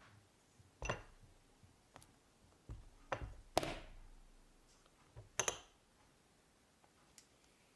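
A handful of sharp, separate taps and clicks of hard objects, uneven in spacing; the loudest comes about three and a half seconds in and a quick double click follows about two seconds later.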